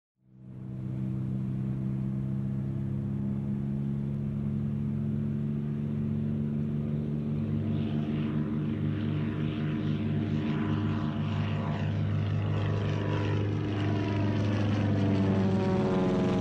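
Propeller aircraft engine droning steadily. It fades in quickly at the start, and from about halfway its upper tones sweep in pitch while it grows slightly louder toward the end.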